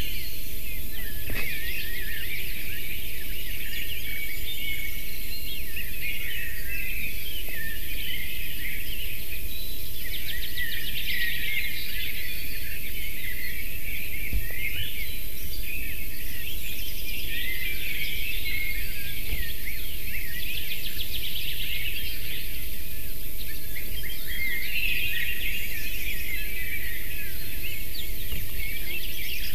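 Small songbirds singing, with many overlapping chirps and quick trills, over a steady low rumble and a constant high hiss.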